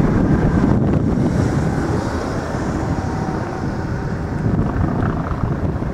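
Wind buffeting the microphone: a loud, uneven low rumble that eases off slightly in the second half, with a faint steady hiss above it.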